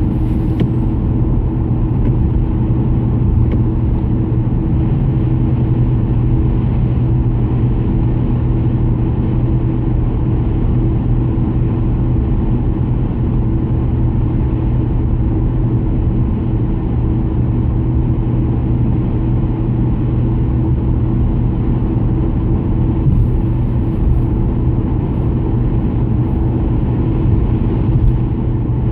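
Steady in-cabin noise of a car driving along: a continuous low rumble of tyres and engine with an even low hum.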